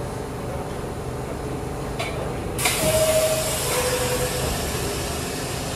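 New York subway R62-series train standing at the platform over a steady rumble. A sudden hiss of air comes about two and a half seconds in. It is followed by a two-tone descending chime, high then low, the signal that the doors are closing.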